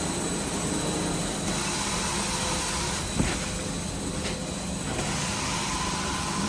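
Band saw cutting machine for maxi paper rolls running with a steady mechanical hum and hiss, with one short knock about three seconds in.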